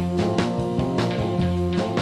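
Instrumental background music with a steady beat, guitar over drums.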